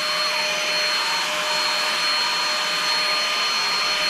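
Tower VL70 cordless stick vacuum running steadily, a constant rushing hiss of airflow with a steady high whine from the motor.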